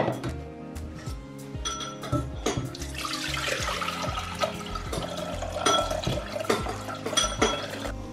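Water poured from a stainless steel bowl into a stainless steel saucepan, a few seconds of splashing beginning about three seconds in, with background music throughout.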